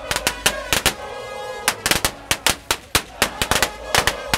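Firecrackers going off in quick irregular cracks, a dozen or more in a few seconds, among a marching crowd of football supporters, with a long held pitched note sounding underneath.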